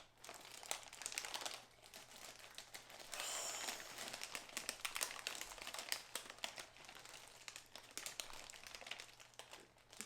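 Plastic bags of kit parts crinkling and rustling as they are handled and opened, with many small ticks and crackles and a busier stretch of rustling about three seconds in.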